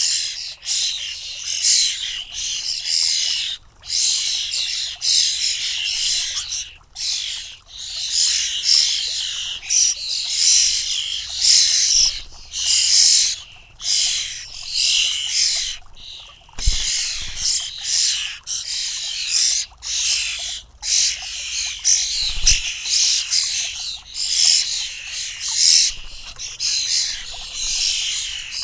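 Fledgling European starlings giving harsh, hissing begging calls, one run after another with short pauses. Two brief low thumps come through partway along.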